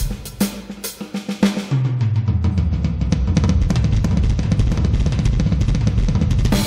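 Electronic drum kit played to the song: evenly spaced hits with cymbals for the first second and a half or so, then a long rapid roll around the snare and toms over a held low note, building toward the ending.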